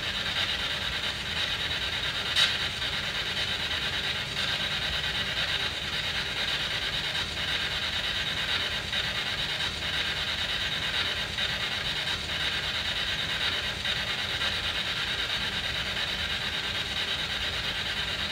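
SB7 spirit box sweeping through radio frequencies: a steady hiss of static with faint ticks as it skips from station to station, and one sharper click about two and a half seconds in.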